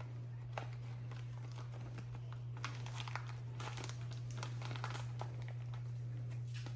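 Plastic packaging crinkling and rustling as a blind-box figure is unwrapped, in irregular crackles that get busier after a couple of seconds. A steady low hum runs underneath.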